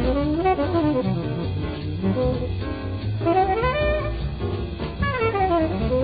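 Up-tempo bebop jazz: a tenor saxophone solo in fast runs that sweep up and down, over walking bass and drums, in an old low-fidelity recording.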